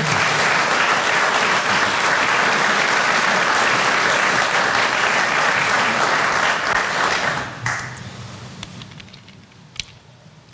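Audience applauding steadily, then dying away about eight seconds in, with a single small knock near the end.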